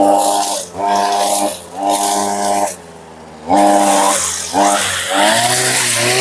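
Two-stroke brushcutter with a chainsaw-chain trimmer head, revved in bursts about once a second as it cuts grass. About three seconds in it drops briefly to idle, then revs hard again, its pitch dipping and recovering under the cutting load.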